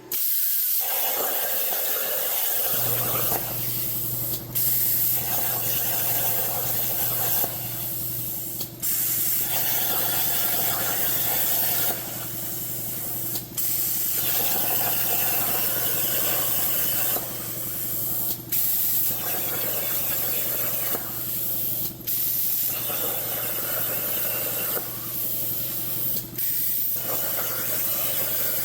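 CNC plasma cutter's torch cutting steel: a loud steady hiss of the arc and compressed air, broken by short breaks every few seconds as the arc stops and restarts for the next cut. A low steady hum sits underneath from about two seconds in.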